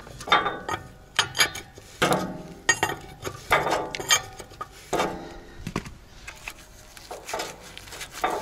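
Irregular metallic clicks and clanks of wrenches working the seized fittings of a semi-trailer's air receiver as they are unscrewed, some strikes ringing briefly.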